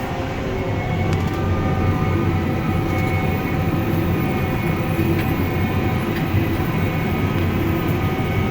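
Tractor pulling a high-density hay baler, its engine running steadily at working speed, with a constant drone and a few steady whining tones from the drivetrain.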